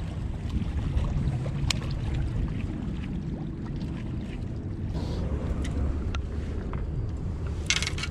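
Wind buffeting the body-worn camera's microphone, a steady low rumble, with a few faint clicks and a short hiss near the end.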